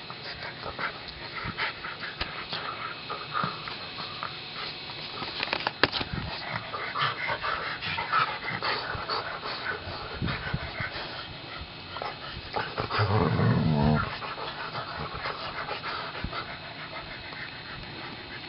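Two dogs, a pug and a mutt, tussling at very close range: hard dog panting and snuffling with scuffling of fur and paws. A sharp knock comes about a third of the way in, and one dog lets out a low growl lasting about a second, about two-thirds of the way through.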